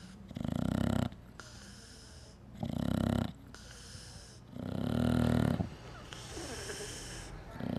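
A bulldog snoring in its sleep: loud snores every two to three seconds, three in full and a fourth starting near the end.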